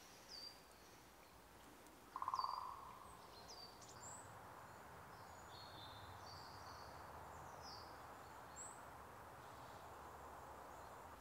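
Faint birdsong: small birds' short, high chirps scattered throughout, with one brief, louder buzzy sound about two seconds in.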